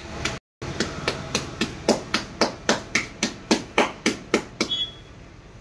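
A wooden beater striking the wall of a wet clay pot in steady rhythmic blows, about four a second, as the pot is shaped. The blows stop shortly before the end.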